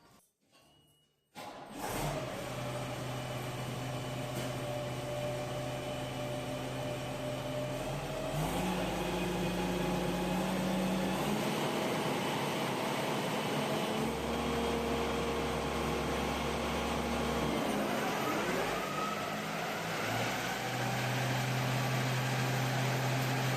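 A Case IH WDX 1701 self-propelled windrower's diesel engine starting about a second in, then running steadily with its pitch stepping up and down several times while the freshly repaired disc cutter bar is run for a test spin.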